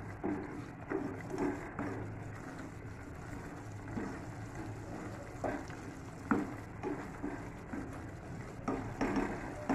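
A black spatula scraping through thick tomato masala and knocking against the sides of a nonstick pot as it is stirred, in irregular strokes over a steady low hum.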